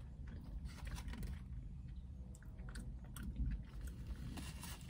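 A person chewing a mouthful of breaded fried chicken sandwich with her mouth closed, with small scattered mouth clicks.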